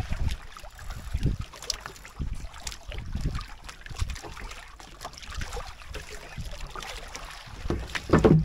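Irregular low thumps and knocks of a small fishing boat on the sea, with a louder knock near the end.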